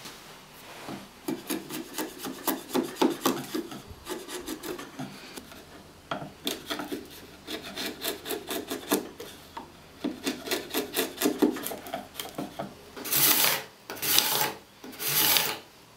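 Chisel scraping dried glue squeeze-out off a glued-up wooden board, in quick short scrapes, then a few longer, louder strokes near the end.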